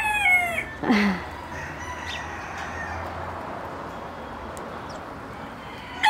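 A small rooster's crow ends in the first half second, its last note falling away, and a short downward call follows about a second in. After that it is quieter, with faint drawn-out calls in the background.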